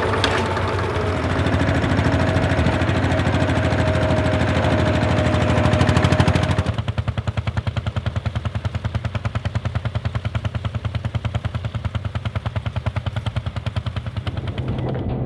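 Schlüter DS 15 H tractor's diesel engine chugging steadily under load while pulling a plough, an even, rapid beat of exhaust pulses. About six and a half seconds in, the sound changes abruptly to a clearer, more separated beat with less hiss.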